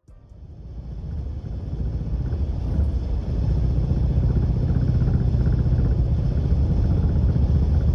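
Car on the move: a dense low rumble of road and running noise that builds over the first few seconds and then holds steady. This is a recording of the abnormal suspension noise that comes with worn suspension bushings.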